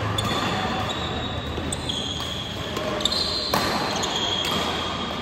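Badminton play on an indoor court: sports shoes squeaking on the court floor, with two sharp racket-on-shuttlecock hits about three seconds in.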